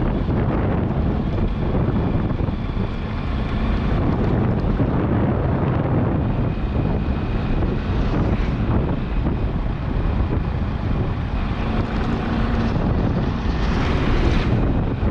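Steady wind rumble on the microphone mixed with a vehicle's running noise.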